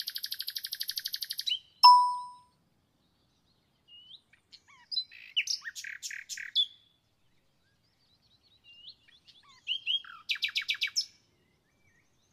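Small songbird chirping in three bursts of short whistles and fast trills, with a single bright ding about two seconds in that rings briefly and fades.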